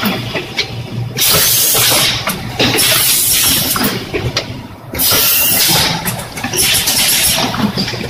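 Premade-pouch packaging machine running, a loud hiss coming and going every two to three seconds over a steady low hum.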